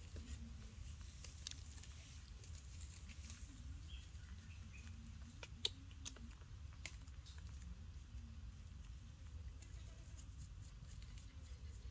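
Faint clicks and rustles of a baby macaque handling and nibbling a banana as it lies on dry dirt and leaves, with one sharper click about halfway through, over a low steady hum.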